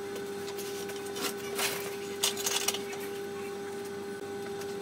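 Hand-turned die stock cutting thread on a 24 mm steel shaft held in a bench vise: a few metal clicks and scraping rubs in the first three seconds, over a steady hum.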